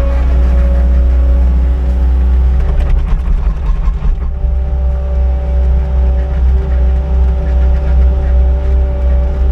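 An engine running steadily with a deep low hum, broken by a short rattly stretch about three to four seconds in.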